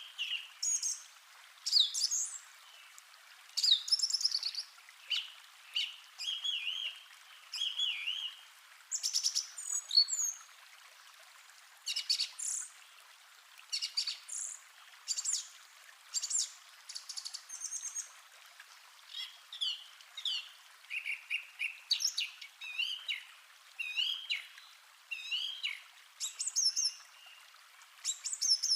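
Forest birds singing and calling: many short chirps and whistled phrases from several birds, one after another, over a faint steady hiss of background ambience.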